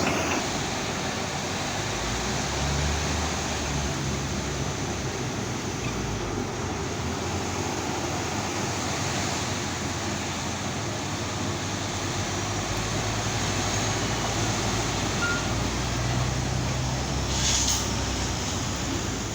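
Heavy engines running steadily among road traffic, their low note shifting a few times, with a short hiss near the end.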